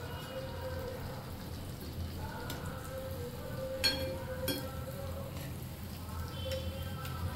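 Gulgule (jaggery and wheat-flour fritters) sizzling steadily in hot oil in a kadhai, with two sharp clicks about four seconds in.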